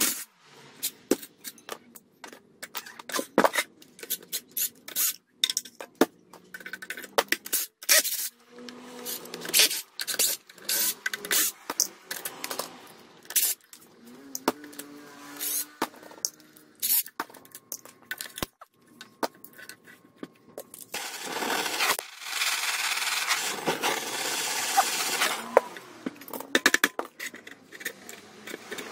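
Hand disassembly of a cut-off saw's electric motor: metal and plastic parts and tools clicking, knocking and scraping, irregularly, throughout. A steady rushing noise runs for about four seconds a little past the middle.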